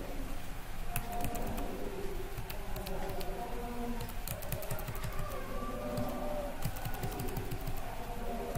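Computer keyboard keys clicking in an irregular run of taps, the way arrow keys are pressed to step through a list.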